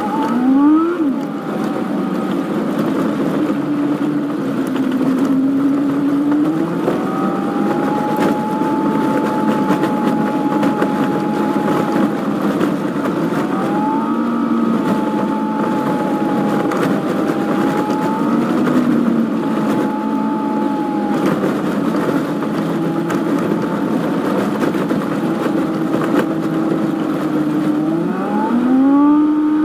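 Daihatsu Feroza's engine and road noise heard from the car, sped up four times, so the engine note sweeps up quickly as it accelerates. It sweeps up near the start and again near the end, and holds a fairly steady pitch while cruising in between.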